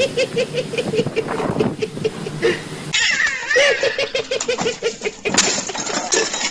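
A man laughing hard in quick, rhythmic bursts of about four or five a second, in two runs. A short high wavering cry comes just after three seconds in, and a sharp knock about five and a half seconds in.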